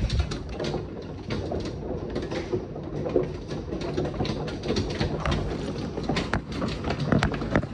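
Hail hitting the house's roof and windows: a dense, irregular clatter of hard impacts over a steady rush of storm noise.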